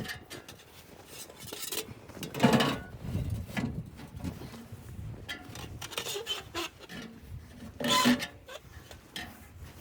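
Wood being handled and scraped: irregular rubbing, rasping and small knocks, with two louder scrapes about two and a half seconds in and near the end.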